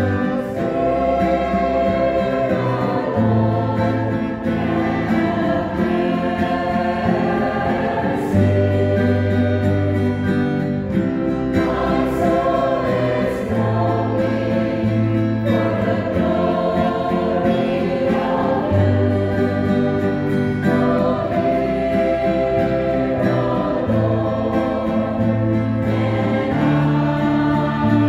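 A church choir singing a slow hymn, accompanied by strummed acoustic guitars, over held low bass notes that change every second or two.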